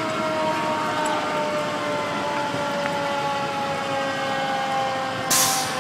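Fire engine siren sounding a steady tone that slowly sinks in pitch as it winds down. A short, sharp hiss comes near the end.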